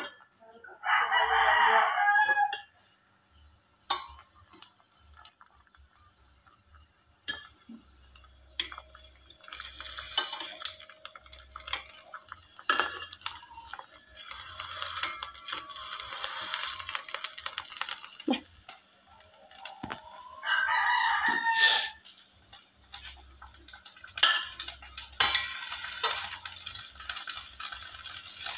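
Battered eggplant slices sizzling in hot oil in a stainless steel pan, the sizzle growing louder after the first few seconds, with tongs clicking against the pan. Two loud drawn-out calls stand out, one near the start and one about two-thirds of the way through.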